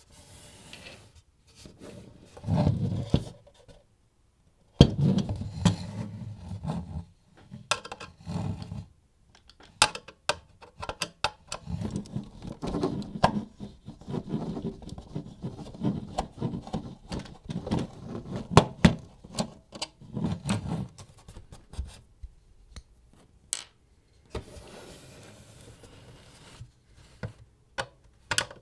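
An electrical appliance being handled and worked on by hand for repair: irregular clicks, small knocks and rattles of its parts, with stretches of scraping and rubbing.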